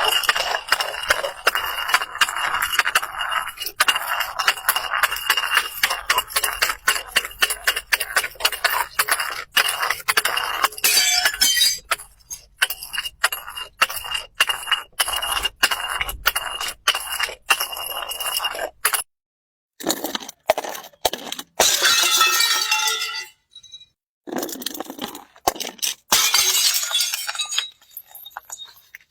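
Glass being broken and crushed: dense, rapid cracking and crunching, with a steady high tone under it for the first two-thirds. About two-thirds in, the sound stops and restarts abruptly as separate short bursts of crunching.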